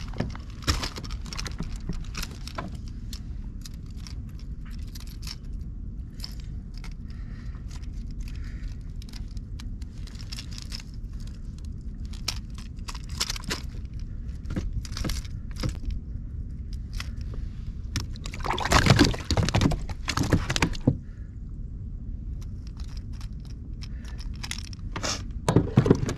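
Close handling sounds on a kayak as a caught fish is unhooked and the lure and line are handled: scattered clicks, taps and rustles over a steady low rumble. Two bursts of louder clattering knocks come about two-thirds of the way through and again near the end.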